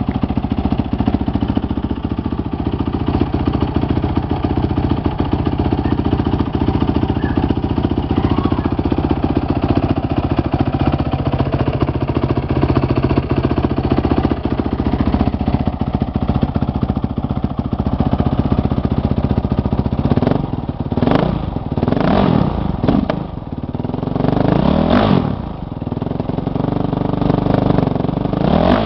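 2007 Yamaha YZ450F's single-cylinder four-stroke engine running through an FMF exhaust. It idles steadily for about twenty seconds, then is revved in several quick throttle blips, each rising and falling in pitch.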